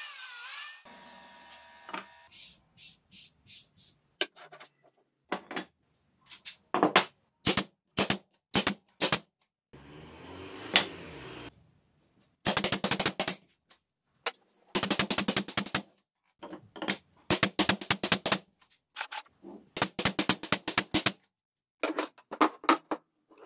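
A saw blade winding down in the first two seconds, then scattered knocks of chipboard pieces being handled. Later come four short bursts of rapid rattling clicks, typical of a cordless driver driving screws into melamine chipboard.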